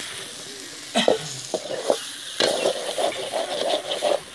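A perforated metal skimmer stirring and scraping quail pieces frying in a metal kadai, over the hiss of sizzling oil. A few separate scrapes come about a second in, and the scraping turns near-continuous from about the middle on.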